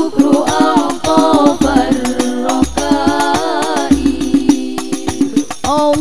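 Girls' voices singing a sholawat melody, with a long held note about four seconds in, over the steady beat of Banjari frame drums and low bass-drum thumps.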